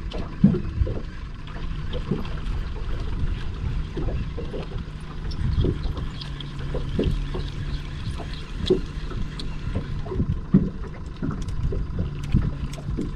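Small waves knocking irregularly against the hull of a small fiberglass boat, with wind rumbling on the microphone.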